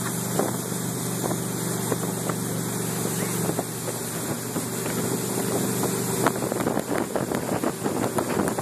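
Motorboat engine running steadily under way, with water rushing in the churned wake and wind buffeting the microphone. From about six and a half seconds the wind crackle on the microphone grows rougher and more uneven.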